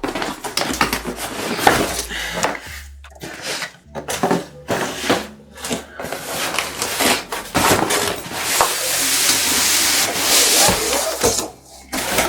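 Cardboard box packaging being handled and opened: a string of knocks and rustles, then a continuous rasping rustle for about three seconds, starting some eight seconds in.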